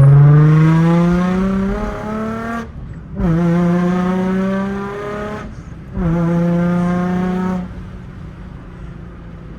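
Nissan 350Z's 3.5-litre V6 accelerating hard in a manual car: the engine note climbs, breaks off briefly for an upshift about three seconds in, pulls again, and breaks for a second shift near six seconds. It then settles to a lower, quieter steady drone as the throttle eases off near the end.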